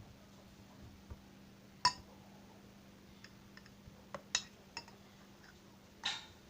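A handful of short, sharp clinks and clicks against a dish as it is eaten from: one loud one about two seconds in, a quick cluster a little past the middle and another near the end, over a faint steady hum.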